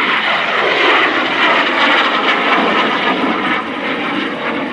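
MiG-17 jet fighter's turbojet engine as the aircraft flies past, a loud jet noise whose pitch drops in the first two to three seconds as it goes by.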